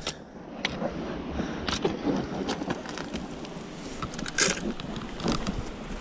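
Shoes and hands scuffing and scraping on rock and loose dirt while climbing down a cliff, with scattered sharp knocks and scrapes close to the camera.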